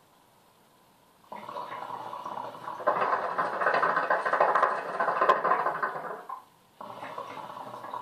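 Hookah water bubbling in the base as smoke is drawn through the hose. One long draw of about five seconds grows louder partway through, and a second, shorter draw starts near the end.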